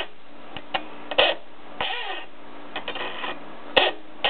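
A hacksaw working on the metal rail of old toy train track in a few short, uneven strokes, with small metallic clicks and one sharp click a little before the end.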